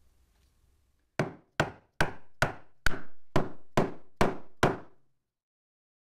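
Nine sharp wooden knocks, a little over two a second, then stopping, as a walnut chisel handle with a brass ferrule is struck to seat it onto the chisel.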